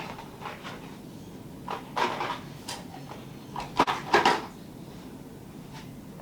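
Household objects being handled and set down while tidying: a few scattered knocks and clatters, the loudest a quick cluster about four seconds in.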